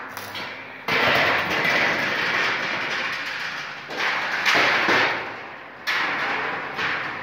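Electric arc welding on steel gate bars: three runs of crackling hiss, each starting abruptly, the first about a second in and lasting about three seconds, the others shorter.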